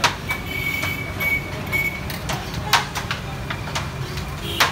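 Utensils knocking and clinking against metal pots and dishes, about seven irregular sharp strikes with a brief metallic ring in the first couple of seconds, over a steady low rumble of street traffic.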